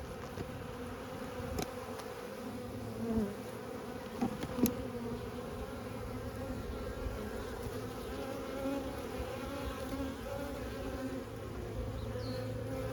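Honeybees buzzing steadily from an open five-frame nuc, a dense, even hum of many bees. A couple of sharp knocks cut through it, the loudest about four and a half seconds in.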